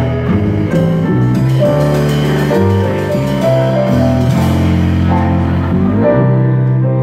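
Live small jazz band playing: piano chords over double bass and drum kit.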